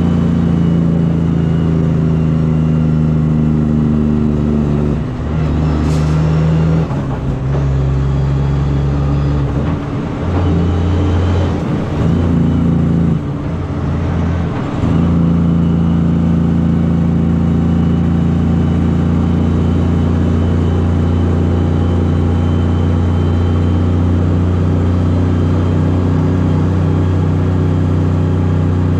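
Kenworth C509 heavy-haul truck's diesel engine running under way. Its note steps down and back up several times, with short dips in loudness, between about 5 and 15 seconds in.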